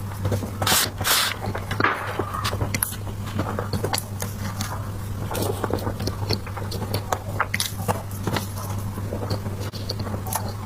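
Close-miked eating of soft desserts: irregular wet chewing, smacking and small mouth clicks, a little louder about a second in, over a steady low hum.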